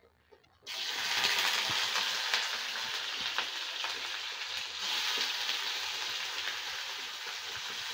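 Paneer cubes frying in hot oil in a kadai: a steady sizzle that starts suddenly under a second in.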